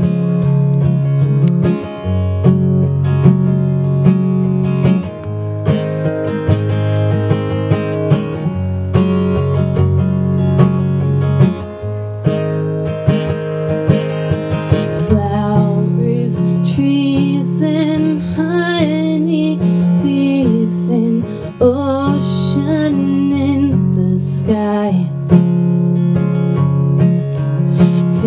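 Acoustic guitar strummed in an instrumental passage between sung verses; about halfway through a woman's voice comes in, holding and bending notes with vibrato over the strumming.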